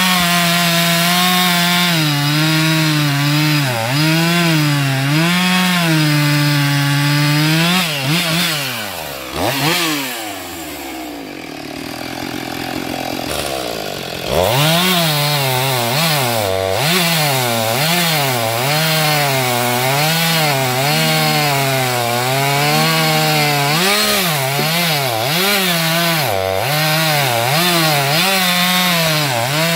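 Husqvarna 450 II two-stroke chainsaw cutting into a log, its engine pitch wavering up and down as the chain bites under load. About eight seconds in the revs fall away and it runs quieter for several seconds, then the throttle opens sharply again about fourteen seconds in and it goes back to cutting.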